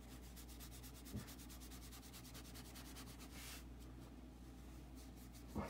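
Sakura Koi brush marker scratching faintly on paper in quick back-and-forth colouring strokes, which stop about three and a half seconds in after a last longer stroke. A faint low knock about a second in and another at the end.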